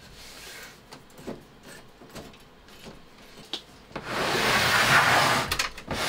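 Hands working on the Compaq ProLiant 3000 server's case: a few light clicks and taps, then, about four seconds in, a louder sliding, scraping noise lasting about two seconds with a few clicks at its end.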